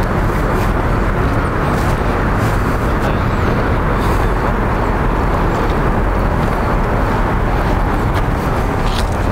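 Steady, loud rushing outdoor noise with no distinct events, strongest in the low and middle range.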